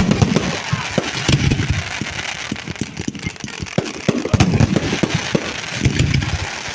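Fireworks exploding overhead in a rapid, continuous barrage: sharp bangs and crackling, with heavier booming salvos about a second in, around four and a half seconds in and near six seconds in.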